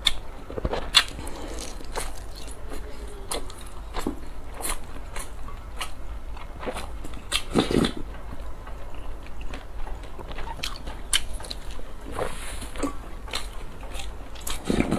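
Close-miked eating sounds: wet chewing and mouth clicks as a person eats a steamed dumpling, with louder slurps of soup from a spoon, once about halfway through and again near the end.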